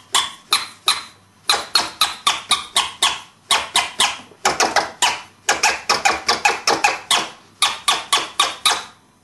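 Scratch stabs on a vinyl record: the record on a Technics turntable is pushed forward fast, each push let through by a split-second flick of the mixer's crossfader, giving short, sharp, high-pitched sounds that cut off cleanly with no reverse part. They come about three to four a second, in runs broken by short pauses.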